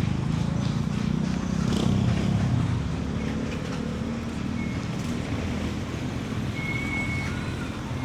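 A motor vehicle engine passing close in street traffic, loudest about two seconds in and then fading into steady traffic noise.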